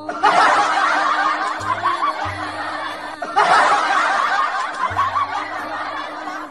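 Many people laughing and chuckling together in two bursts, the second starting about halfway through, over background music.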